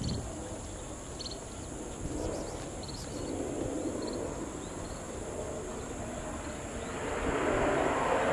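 Air Tractor AT-802A single-engine turboprop on its landing approach; its engine and propeller noise builds, louder over the last second or so, above a steady outdoor background with a few short high chirps in the first four seconds.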